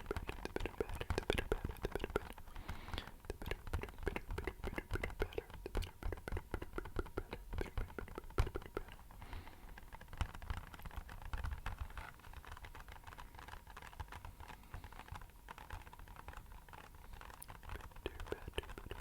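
Rapid fingertip tapping on an empty box: a dense, rain-like patter of light taps, which turns softer and sparser about two-thirds of the way through.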